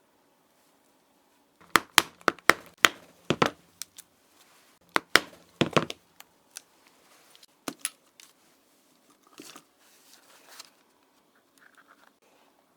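Sharp, irregular clicks and taps from leather-working at the bench, in two quick clusters about two and five seconds in, then a few scattered single clicks.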